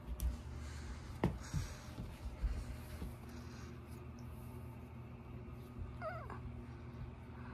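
Kitten giving one short, wavering mew that falls away at the end, about six seconds in. Before it come a few soft thumps as she plays on the rug.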